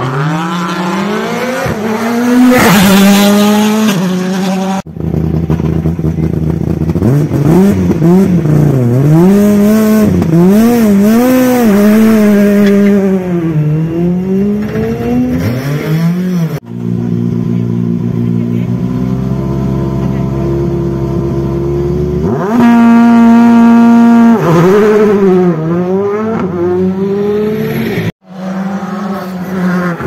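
Rally car engines at full effort, a series of clips. Cars accelerate through a hairpin with the revs rising and falling at each gear change. Near the middle, a car idles at the start line, is held at high, steady revs for about two seconds, then pulls away.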